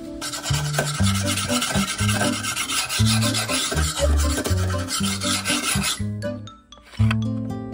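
Scouring sponge scrubbed rapidly back and forth along a machete blade, a dense scratchy rubbing that stops about six seconds in.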